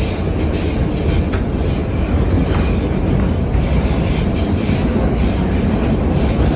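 New York City subway train running, heard from inside the car: a loud, steady rumble with faint clicks from the wheels on the rails.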